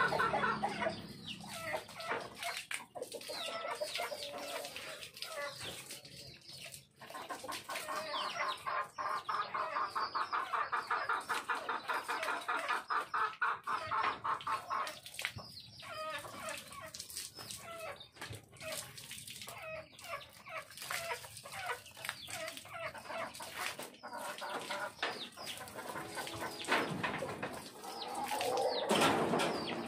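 Chickens clucking, with scattered short splashes of water.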